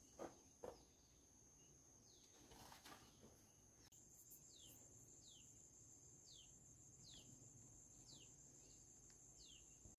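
Faint outdoor ambience: a steady high-pitched insect drone, with a few soft knocks in the first second and, from about four seconds in, a series of short downward-sliding chirps about one a second.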